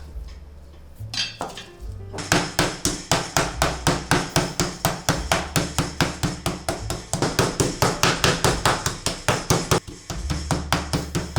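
Meat mallet pounding pork fillet slices on a board, fast and even strokes, about four or five a second, starting about two seconds in and stopping shortly before the end, over background music.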